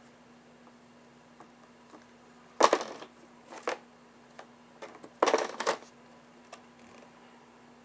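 Wand presentation box being handled on a glass-topped table: two louder knocks and rattles of the box and its lid, about three and five seconds in, with a few light taps in between.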